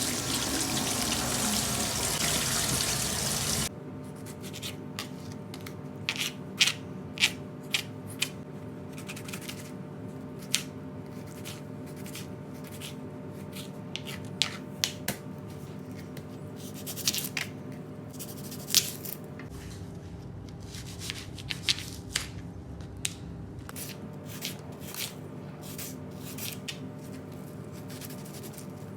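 Kitchen food-preparation sounds: scattered clicks and taps of hands handling and cutting ingredients over a steady low hum. It opens with about four seconds of loud rushing noise that cuts off suddenly.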